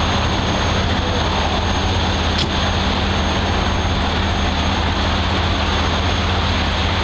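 Heavy diesel engines idling steadily: a constant low rumble and hum with no change in speed.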